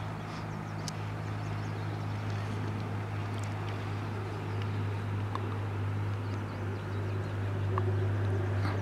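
A steady low engine hum, like a motor vehicle running at idle, holding one even pitch throughout, with a few faint clicks over it.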